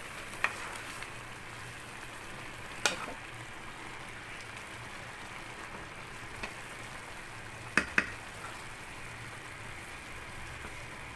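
Wooden spoon stirring half-cooked rice in a large aluminium pot over a steady hiss from the simmering pot. A few sharp knocks of the spoon against the pot, two close together about eight seconds in.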